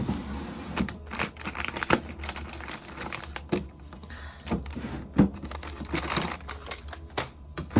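Plastic-wrapped seasoned-laver packets and paper pouches being handled and pushed into a drawer: a string of crinkles from the wrappers, with light clicks and knocks as the packets hit the drawer.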